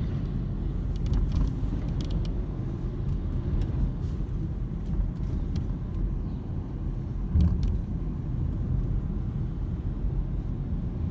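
Steady road rumble inside a fifth-generation Honda CR-V's cabin while driving, with faint, irregular clicks and ticks from a door: an unexplained door rattle. A slightly louder bump with clicks comes about seven seconds in.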